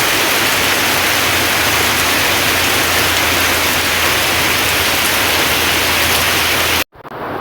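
Heavy rain falling steadily in a dense, even hiss. Near the end it cuts off abruptly for a split second and comes back as quieter rain.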